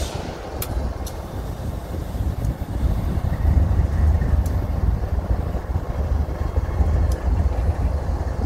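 A train rumbling past: a steady low rumble with a few faint clicks scattered through it.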